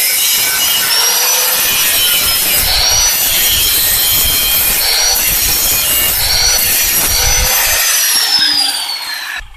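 Handheld electric angle grinder grinding steel, a loud rasping hiss with a high whine that wavers up and down as the disc is pressed into the metal. It cuts off suddenly near the end.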